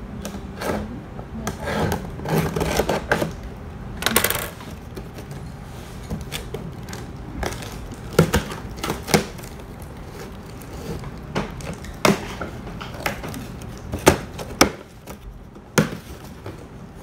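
Cardboard carton being cut open: scissors scraping and cutting at the packing tape for the first few seconds, then the box's flaps being handled, with scattered sharp knocks and taps against the cardboard.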